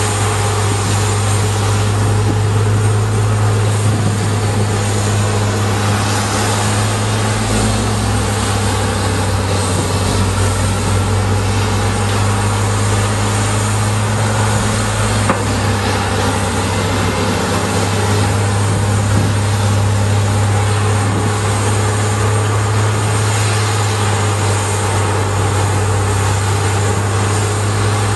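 Peterson 6700B horizontal grinder running steadily under load as it grinds mulch, its diesel power unit a deep, unbroken drone with a faint high whine above it. A wheel loader's engine mixes in while it feeds the grinder.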